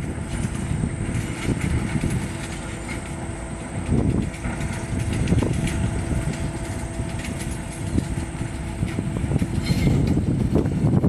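GE 25-ton diesel switcher locomotive running and creeping slowly along the track: a steady low engine rumble with a held hum, and a few clunks as it rolls over the rough track.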